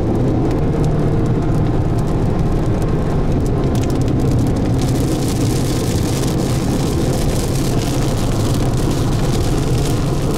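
Car driving at road speed, heard from inside the cabin: a steady low rumble of engine and tyres. A hiss in the higher range grows about five seconds in.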